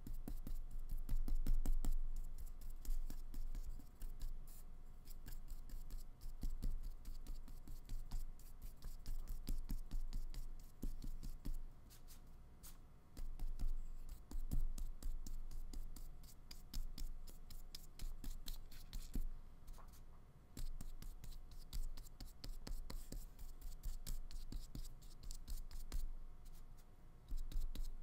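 Flat paintbrush dabbing and stroking acrylic paint onto paper, a long run of quick, irregular, scratchy strokes.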